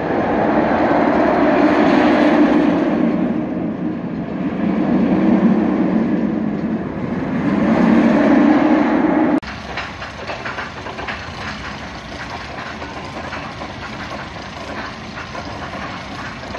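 Medusa, a Bolliger & Mabillard floorless steel roller coaster, its train running over the track with a loud rushing rumble that swells three times. About nine seconds in this cuts off abruptly to a quieter, steady rattle with many small clicks: a coaster train running on its track.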